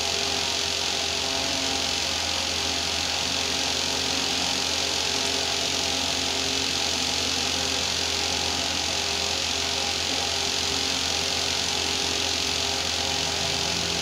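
A steady mechanical hum with a constant hiss, unchanging throughout, like room ventilation machinery running.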